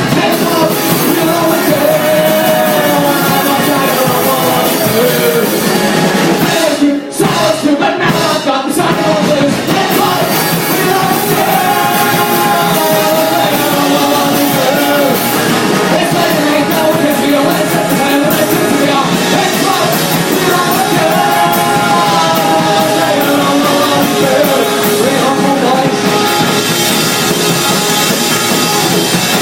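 Rock music with a sung lead vocal over the band, loud and continuous, with a brief break about seven seconds in.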